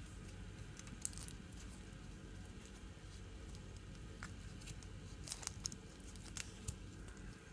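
Faint rustling and scattered small clicks over a steady low rumble. The clicks bunch up about a second in and again in the second half, as fur or fabric is handled close to the microphone.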